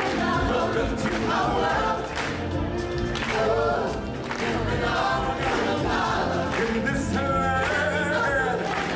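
A choir of live performers singing with instrumental backing, a group musical number in a stage show.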